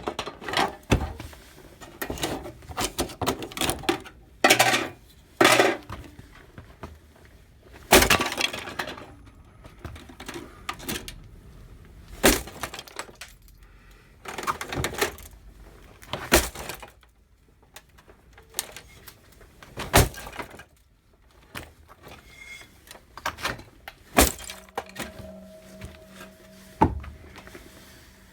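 Technics RS-X102 cassette deck being smashed: a long series of hard blows at uneven intervals, several followed by cracking and clattering as its casing and parts break.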